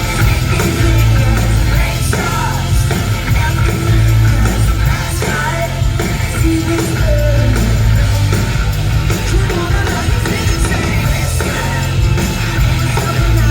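Live indie-rock band playing at full volume: heavy bass and drums under a lead vocal singing.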